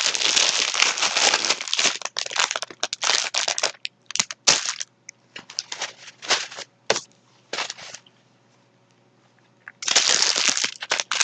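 Plastic snack bag crinkling and crackling as it is handled: dense rustling at first, thinning to scattered crackles, a pause of about two seconds, then dense crinkling again near the end.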